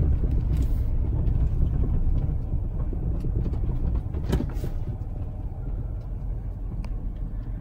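Low rumble of a pickup truck heard from inside the cab as it rolls slowly along a rough dirt road, gradually getting quieter, with a light knock about four seconds in.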